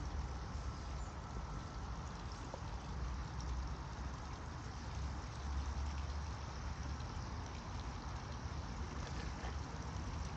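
Steady outdoor water and air noise with a fluctuating low rumble, like wind on the microphone, as a radio-controlled model tugboat cruises slowly on a pond; no distinct motor whine stands out.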